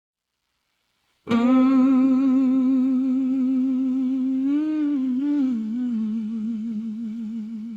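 A solo voice humming a long, wordless blues line with a wide, steady vibrato. It enters about a second in after silence, bends up and down in the middle and settles on a slightly lower note.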